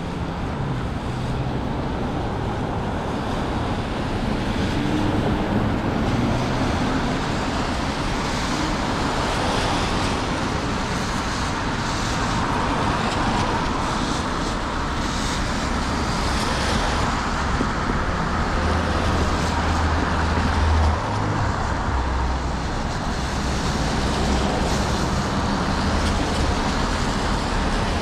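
Steady city street traffic: cars and other vehicles passing with continuous road and tyre noise. A low engine hum builds in the middle and falls away suddenly about three-quarters of the way through.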